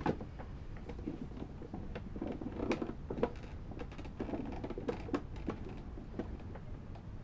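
Scattered small clicks, knocks and creaks from a homemade wooden mini excavator and its lever remote control as the levers are worked, with syringes pushing water through tubes to move the arm.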